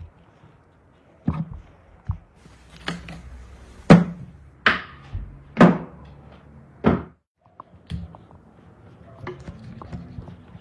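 A cattle foot knocked hard against a wooden cutting board during hoof trimming: about seven sharp thunks, spaced roughly a second apart, over the first seven seconds, then quieter handling.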